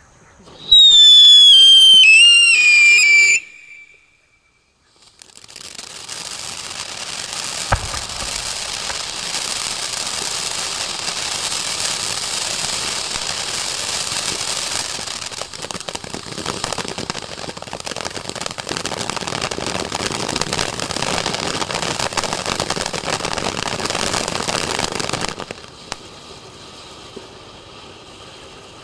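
A loud high whistle falling in pitch in steps lasts about three seconds. After a short pause a firework fountain sprays sparks with a steady loud hiss and crackle for about twenty seconds, then dies down to a fainter hiss near the end.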